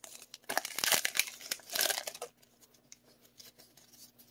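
Foil Pokémon TCG booster pack wrapper tearing and crinkling in quick rustly bursts as it is pulled open, for about the first two seconds; after that near quiet with a faint steady hum.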